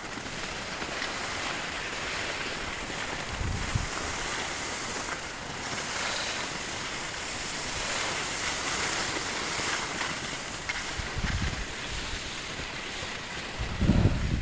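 Steady hiss of skis sliding over snow, with low gusts of wind buffeting the microphone a few times.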